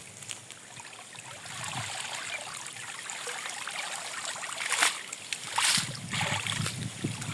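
Water sloshing and trickling as a person wades through a lagoon, with two sharper splashes about five seconds in.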